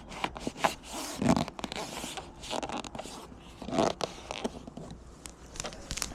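A locksmith handling his car-opening tools: irregular scraping and rustling with sharp clicks, loudest a little after a second in and near four seconds.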